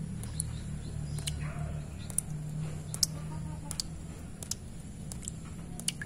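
Water drops falling one at a time into a shallow, stony puddle, each landing as a sharp, high plink about once a second, over a steady low hum.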